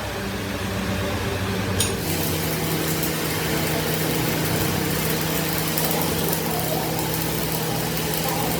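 A machine running with a steady hum, and a single sharp metallic click just under two seconds in, after which the hum grows louder and stays even.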